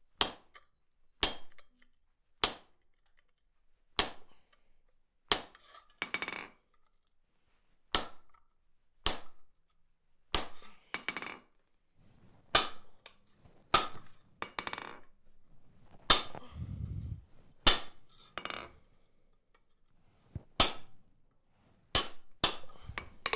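Hand hammer striking a cold chisel held on steel plate laid on an anvil, cutting a groove along a curved outline: about fifteen sharp metallic strikes, roughly one every second or so with a few short pauses, as the chisel is walked forward in the groove.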